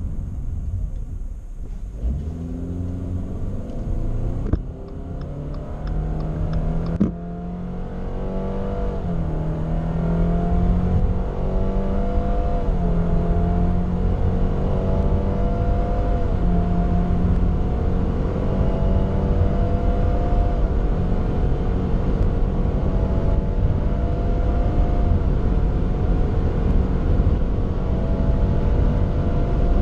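Subaru XV 2.0i's two-litre four-cylinder boxer engine at full-throttle acceleration, heard from inside the cabin. The revs pick up about two seconds in, then climb steadily, with the Lineartronic CVT letting the pitch rise and dip back slightly about five times in stepped shifts. Two short knocks come early in the run.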